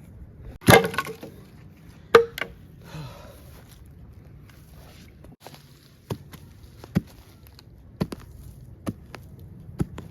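Dry firewood sticks being snapped and handled: a loud crack with a rattling clatter, two more cracks soon after, then a run of short, sharp snaps about once a second.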